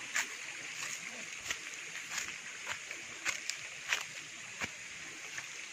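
Footsteps on dry leaf litter along a forest trail: short sharp rustles about one or two a second, uneven in spacing. Under them runs a steady high hiss.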